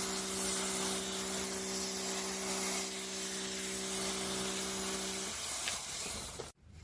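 Electric cleaning sprayer jetting water onto an air conditioner's blower wheel: a steady spray hiss over a motor's hum. The hum stops a little after five seconds in, and the hiss cuts off sharply about a second later.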